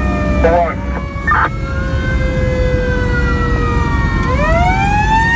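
Fire truck's mechanical siren, a Federal Q, heard from inside the cab: its pitch slowly falls as it coasts down, then winds back up a little after four seconds while a second siren tone sweeps up and down alongside it. A steady low rumble of the truck's engine and tyres runs underneath.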